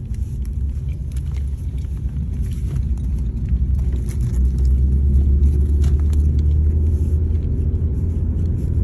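Low, steady rumble of a car heard from inside the cabin while driving, engine and road noise, growing louder about three and a half seconds in. A few faint clicks and rustles sound over it.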